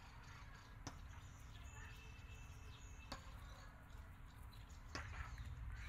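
Quiet outdoor background with about four sharp little clicks and taps from hands handling small condiment containers, and a short thin high steady tone about two seconds in.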